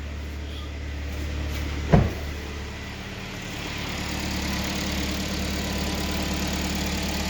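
Freshly rebuilt Kia Sportage 3 four-cylinder petrol engine idling steadily just after its first start, with a single thump about two seconds in; the idle grows a little louder in the second half.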